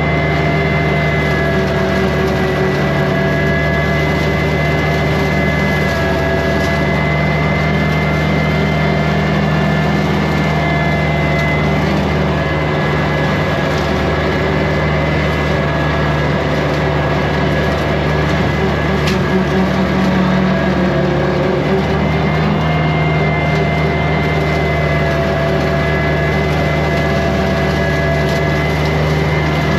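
Kubota compact tractor's diesel engine running steadily at working speed, driving a rotary brush cutter, with a steady high whine on top of the engine note.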